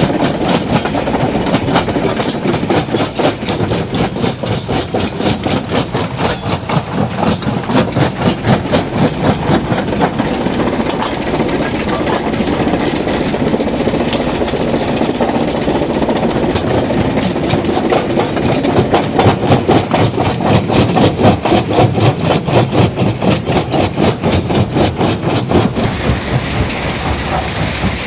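Stone crusher running under load, breaking rock with a fast, even clatter of several knocks a second over a steady machine rumble; the knocking grows louder in the second half.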